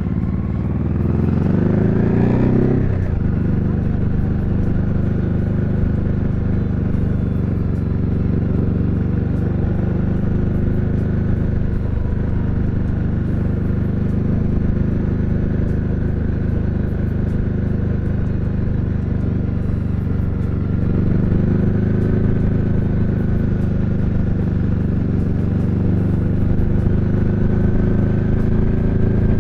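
JS700 motorcycle engine revving up as the bike pulls away, its pitch rising for the first three seconds or so. It then runs at a steady speed, lifting a little about twenty seconds in.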